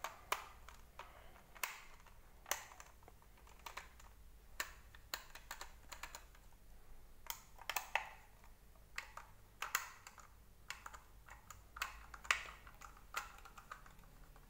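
Irregular light clicks and taps, about one or two a second, of a precision screwdriver and small screws working against the plastic brush-head housing of a Deerma VC25 vacuum as it is unscrewed and taken apart.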